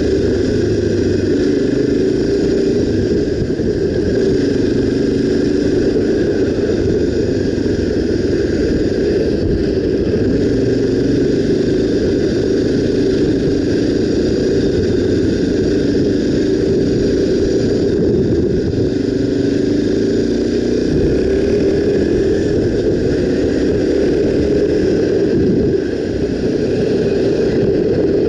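Honda XR 250 Tornado's single-cylinder four-stroke engine running under way, its pitch rising and falling gently with the throttle.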